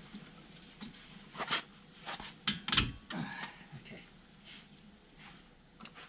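Sharp metallic clicks and knocks of a brake caliper and hand tools being handled during a front brake pad change, a cluster of louder knocks in the middle.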